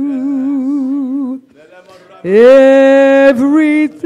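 A woman's solo voice singing a slow worship song unaccompanied. A held note with wide vibrato ends about a second in, and after a short break a new note scoops up in pitch and is held steady.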